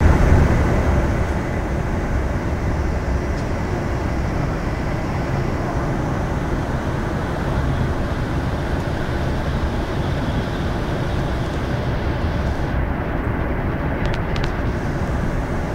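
Steady engine and road noise inside a moving bus at motorway speed, a low drone with tyre hiss. A few faint clicks near the end.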